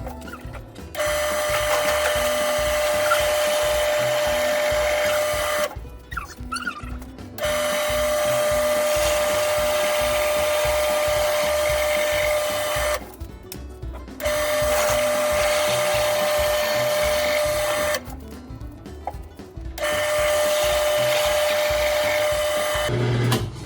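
Drill press running with a steady whine while drilling into a wood log. It comes in four stretches of about five seconds, each cut off abruptly by a short quieter gap. Background music plays under it.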